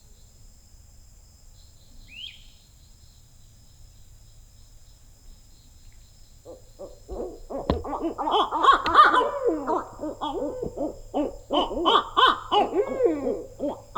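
Owls calling in a chorus of overlapping hoots and cackling calls that breaks out about halfway through and runs on loudly after a quiet start.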